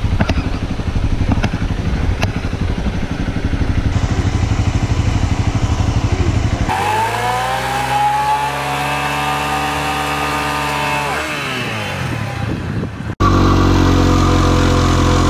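Small motorcycle engines across three cuts. First a dirt bike's single-cylinder engine running with a fast, even beat; then a Honda CRF dirt bike revved high for a smoky burnout, its pitch climbing, holding for a few seconds and falling away; then, after an abrupt cut, a Honda PCX scooter revved at a steady high pitch while smoking its rear tyre.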